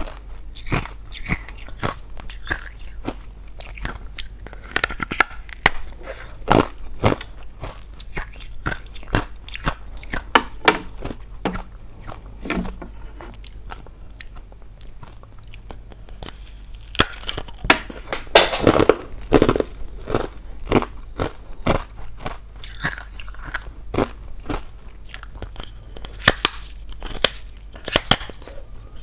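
Biting and chewing hollow ice close to the microphone: a run of sharp crunches and cracks, with a quieter stretch around the middle and a denser, louder burst of crunching about two-thirds of the way through.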